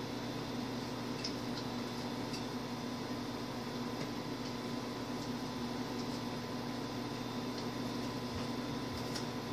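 Steady low electrical hum over an even hiss, with a few faint ticks.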